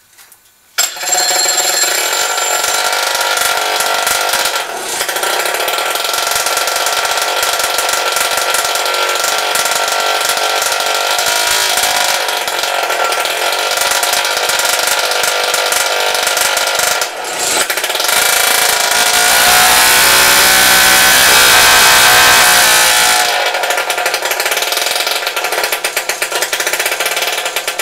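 The motorbike's engine starts about a second in and runs loud and steady. It gets louder and fuller for a few seconds about two-thirds of the way through, then settles back.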